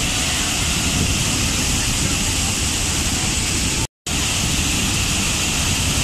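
Large waterfall pouring onto rocks: a steady, loud rush of falling water, broken by a momentary drop to silence about four seconds in.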